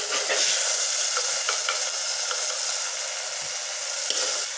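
Hot oil sizzling steadily in a clay pot as sukkutti kai berries finish frying, with a few light clicks of a metal slotted spoon scooping them out.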